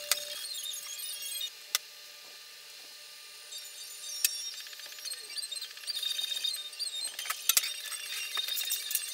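Sped-up sound of bar clamps and tools being handled on a workbench while a wooden handle is clamped: sharp metal clicks and clinks, with a quick cluster of them near the end, over fast high-pitched chatter.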